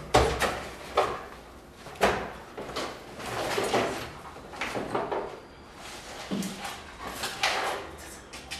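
Objects being handled and moved about at a cluttered desk: irregular knocks, clatter and rustling, with sharp knocks about once a second over the first two seconds.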